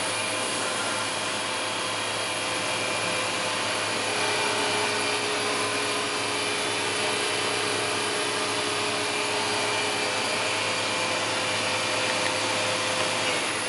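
Fadal 6030 vertical machining center's spindle running at about 3,000 rpm in high gear, a steady whir with a few held tones.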